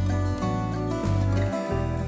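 Instrumental background music, with a bass line moving from note to note.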